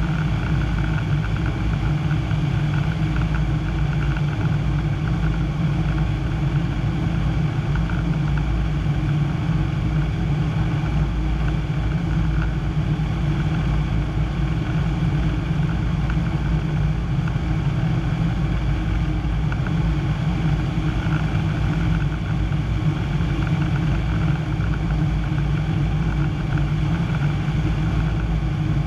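Piper Pawnee PA-25-235's six-cylinder Lycoming engine and propeller droning steadily, heard from inside the cockpit while the plane tows a glider. The pitch and loudness hold constant throughout.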